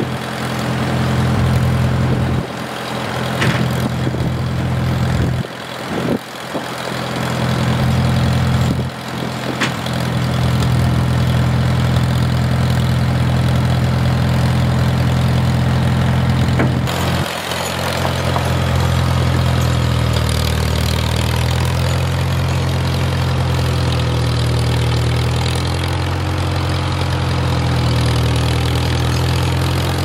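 Engine running steadily, dipping briefly a few times in the first ten seconds and shifting its note about halfway through.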